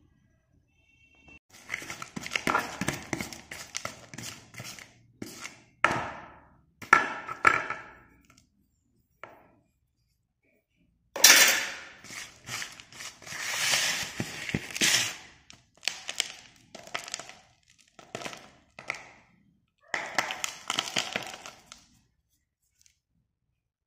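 Broken slate pencil pieces clattering and clicking against each other and a plastic tub as they are handled, in bursts of sharp knocks with short pauses; the loudest crack comes about eleven seconds in.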